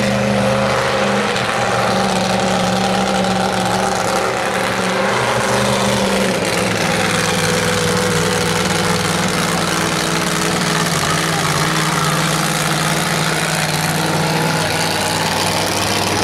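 Monster truck engine running steadily at low speed, its pitch dropping slightly about six seconds in.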